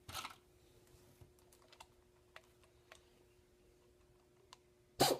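Handling noise from a Rivet King RK-50SP air-hydraulic rivnut tool as it is turned and gripped. A brief rustle at the start, scattered light clicks, then a sharp clack near the end, over a faint steady hum.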